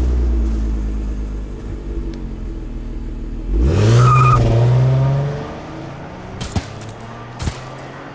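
Car engine running low, then revving up about three and a half seconds in and holding a higher pitch before dropping away, followed by a few sharp knocks.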